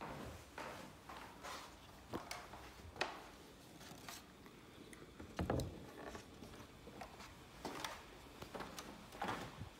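Faint scattered rustles, clicks and scrapes from someone moving about with a handheld camera, with one dull thump about five and a half seconds in.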